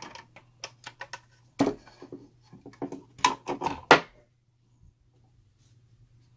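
Irregular clicks and knocks as a Radeon RX 5700 XT graphics card with its stock cooler is handled and turned over, stopping about four seconds in.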